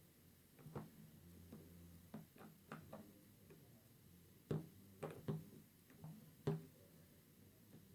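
Irregular light clicks and knocks of hard plastic being handled, from an electric toothbrush and its packaging. A few louder knocks fall in the second half.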